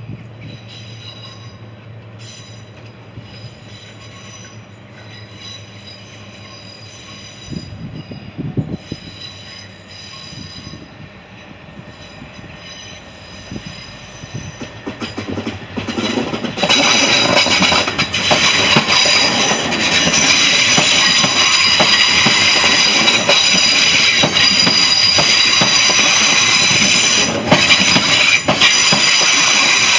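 Southern Class 377 Electrostar electric multiple unit approaching over curved track, its wheels squealing high-pitched with clicks over the rail joints and points. The squeal is faint at first, then becomes suddenly much louder about halfway through as the train draws alongside.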